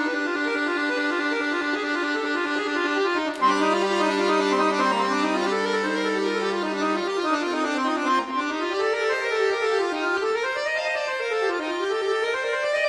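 Solo accordion playing classical music: sustained chords with a held bass note, then quick rising and falling runs through the middle register.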